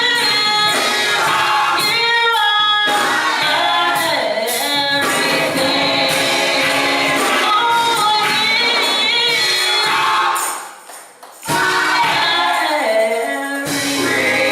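Gospel choir singing with accompaniment. The sound drops away briefly about eleven seconds in, then the singing comes back.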